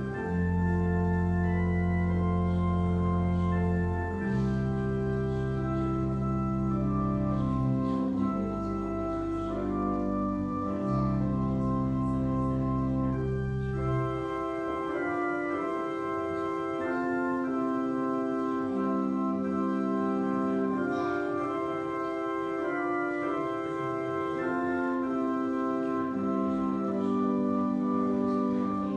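Organ playing slow, sustained chords. The deep bass notes drop out about halfway through, and the higher parts carry on.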